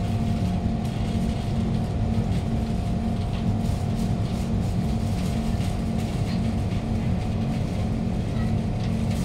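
Kawasaki Heavy Industries C151 train with GTO-VVVF traction running, heard from inside the carriage: a steady low rumble of wheels and traction motors, with a faint whine that fades out about a second in.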